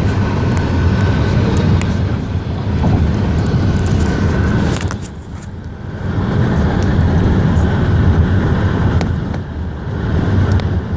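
Road and engine noise of a moving car heard from inside the cabin: a steady low rumble that dips briefly about five seconds in, with a few faint sharp clicks.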